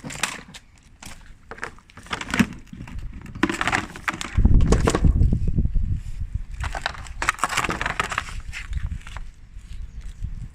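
Ice cubes being tapped, scraped and crunched: a busy run of clicks and rasping crunches, loudest and heaviest a little under halfway through, with another burst of crunching about three-quarters of the way in.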